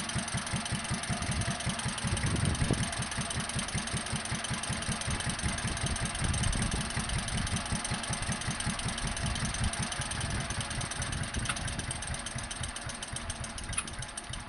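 Fowler 1PA single-cylinder stationary engine running on its first run, a steady beat of firing strokes on a replacement carburettor; the beat weakens a little near the end.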